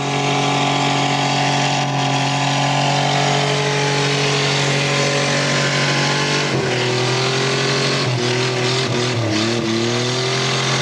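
Car engine held at high revs in a burnout, the spinning tyre smoking; the engine note is steady for the first six seconds or so, then wavers up and down as the revs rise and fall.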